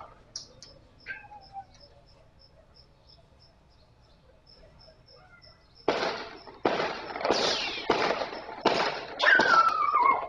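About six gunshots in quick succession, under a second apart, starting about six seconds in, picked up by a street security camera's microphone. A high, falling cry sounds under the last shots.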